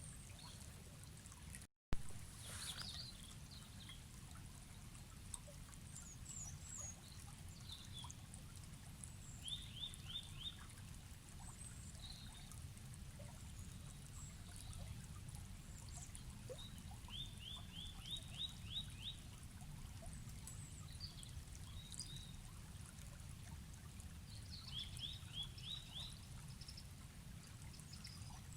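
Forest river flowing steadily, with birds calling over it; one bird gives a quick series of rising notes three times. A brief dropout and a click come about two seconds in.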